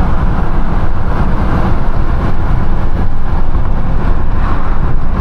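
Heavy, steady wind rush on the microphone of a moving car, with road noise underneath and no distinct engine revs.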